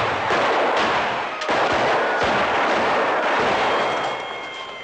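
Gunfire from a film's street shooting scene, dense and echoing, with sharp shots in a loud wash of noise that eases off near the end.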